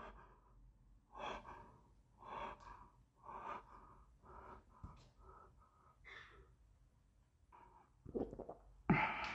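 A man's quick, shaky breathing close to the microphone, faint puffs about once a second, then two louder breaths like gasps near the end.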